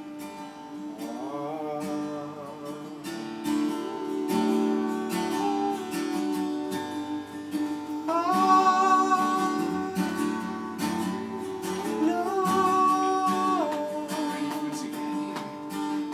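Acoustic guitar strummed as a steady accompaniment, with long wordless sung notes held over it that slide up into place several times.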